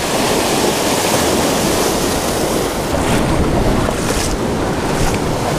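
Surf washing over a rocky shoreline, with wind buffeting the microphone, and a couple of faint splashes of feet wading through shallow water about three and four seconds in.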